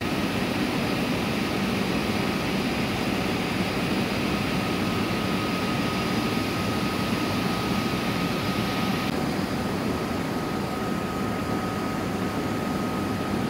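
Steady machine-like drone with a thin, steady whistle running through it.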